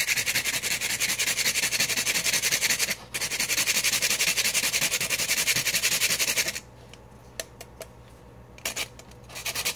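Saigon cinnamon stick grated on a small hand grater: fast, even rasping strokes. There is a short break about three seconds in, then the strokes stop at about six and a half seconds, leaving a few faint taps, and start again near the end.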